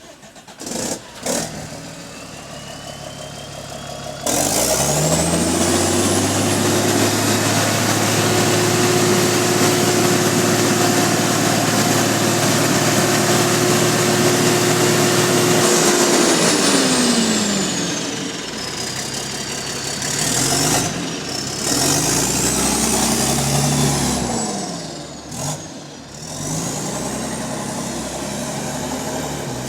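Bus diesel engine revved hard with the loud blowing of an exhaust leak. About four seconds in it jumps to high revs and holds there for about twelve seconds under a rising turbo whistle, then winds down, followed by two shorter revs.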